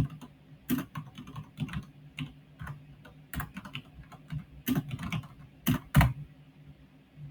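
Typing on a computer keyboard: a run of irregular key clicks, with a few louder, harder presses, as text is typed out.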